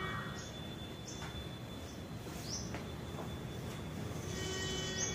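A few short, high, rising bird chirps now and then over faint steady background hiss.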